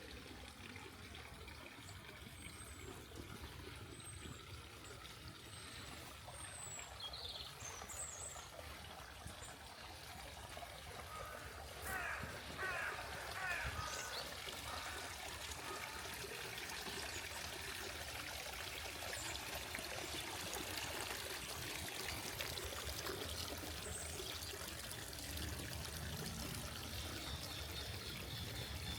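Small garden waterfall trickling and splashing as a steady rush of water, growing louder about a third of the way in.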